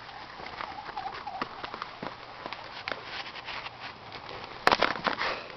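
Rapid crackling and scuffling clicks, a basset hound scrambling about with a soccer ball, with a faint wavering whine about a second in and a loud rustling clatter near the end.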